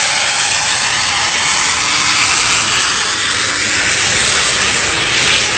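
Jet turbine engine held at high thrust to keep the jet hanging nose-up in a vertical hover: a loud, steady hiss.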